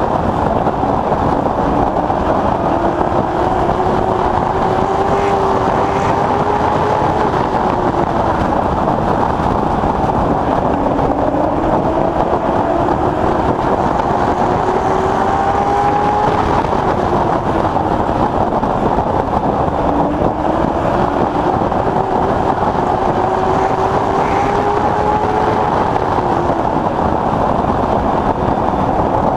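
Late Model Stock race car's V8 engine heard from inside the car at racing speed. Its pitch climbs for several seconds, then drops, over and over, as the car accelerates and lifts around the oval, over a steady rushing noise.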